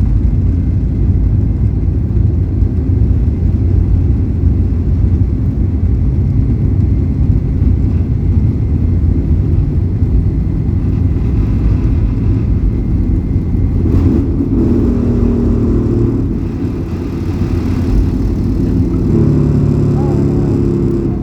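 Airliner cabin during takeoff: a loud, steady, low rumble of the engines and the roll. About 14 seconds in there is a knock, then humming tones come in twice near the end; these are the unexplained sounds around rotation.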